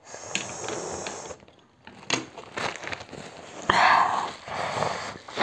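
Close eating and drinking noises: chewing, sipping and a few small clicks. About three and a half seconds in comes a short, loud blow into a tissue, a runny nose from very hot chili noodles.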